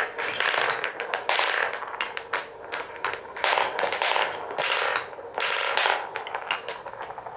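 Colored balls rolling and clattering along a wooden marble-run track: a continuous rattling roll broken by many quick, irregular clicks and knocks.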